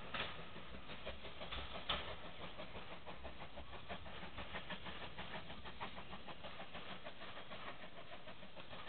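Steam-hauled passenger train behind LMS Ivatt Class 4MT 2-6-0 No. 43106 pulling away. It makes an even, quick rhythmic beat, about four or five strokes a second, that eases slightly as the train draws off. There are a couple of sharper knocks in the first two seconds.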